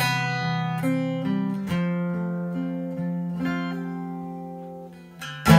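Acoustic guitar played alone: single notes picked over a ringing chord, dying away gradually, then a firm strum near the end.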